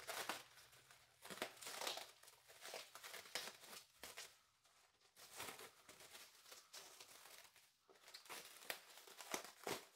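Thick cellophane wrap crinkling as it is pulled off a ceramic pot, in faint short irregular bursts.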